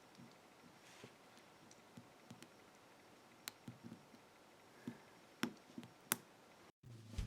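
Faint, scattered ticks and clicks of a hook pick working the pins of a lock held under a tension wrench, with a few sharper clicks in the second half.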